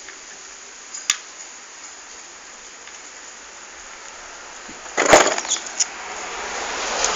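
Puppy eating dry kibble from a metal bowl: a sharp click about a second in, then a burst of loud clinks and knocks about five seconds in.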